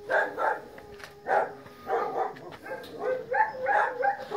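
A dog barking repeatedly in short barks, several close together towards the end.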